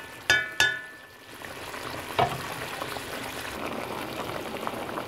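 Two ringing metal clinks against the aluminium pot, then a duller knock about two seconds in, over potato curry boiling in the pot, a steady bubbling that settles in after the first second.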